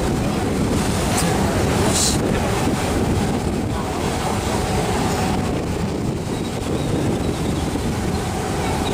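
Steady low rumble of a boat's engine, with wind buffeting the microphone.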